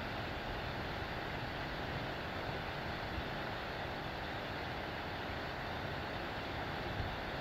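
Steady background noise with a low rumble, even and unchanging, with no distinct events.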